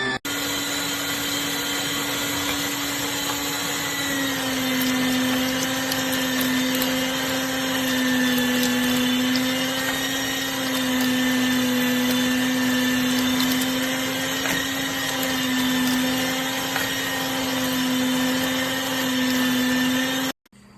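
Ollygrin electric meat grinder's motor running steadily with a loud whine, its pitch dropping slightly about four seconds in; it cuts off suddenly near the end.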